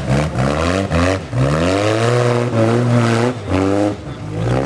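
Rock crawler buggy's engine revving hard in repeated short bursts, the pitch climbing and dropping back again and again as it picks its way up over boulders.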